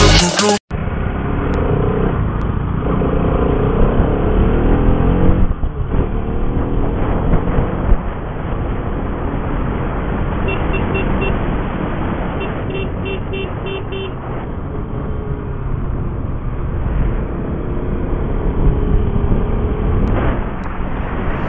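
Bajaj Pulsar RS200 single-cylinder engine running under way with heavy wind noise on the microphone, its pitch climbing over the first few seconds as it accelerates. Around the middle a horn sounds in quick short toots, a run of about four and then a run of about six.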